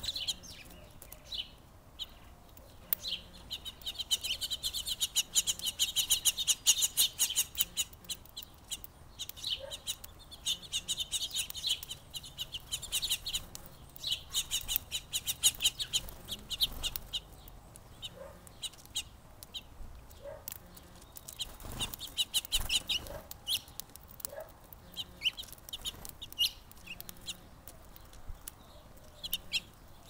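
Many small songbirds chirping: a dense stream of short, high chirps that comes in busy bouts and thins out for moments between.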